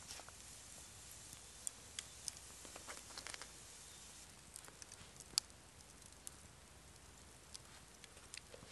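Faint, scattered crisp clicks and ticks over a quiet background hiss, with the sharpest click about five seconds in.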